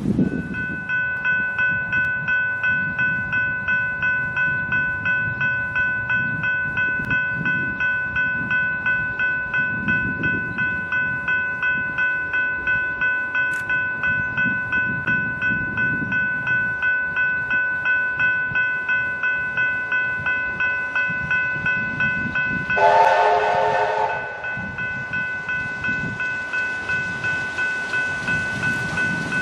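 Level crossing warning bell ringing steadily at about two strokes a second. About 23 s in, the approaching A2 class steam locomotive sounds its steam whistle in a blast of about a second, over the bell.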